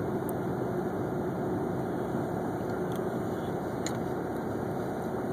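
Steady mechanical hum with a faint held tone underneath, and a few faint clicks.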